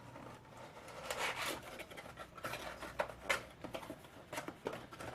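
Packaging being opened and handled: scattered crinkles, scratches and sharp clicks, thickest about a second in and again around three seconds.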